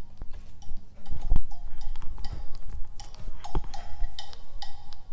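Paper rustling and handling as a sheaf of printed continuous-form pages is held and moved against a cabinet door, with scattered clicks and knocks.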